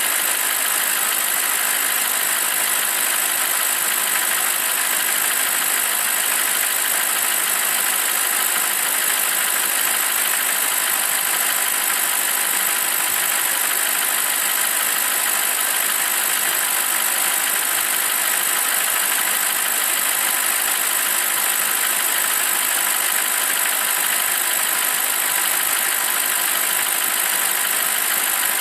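BMW 745i (E65) N62 4.4-litre V8 idling steadily.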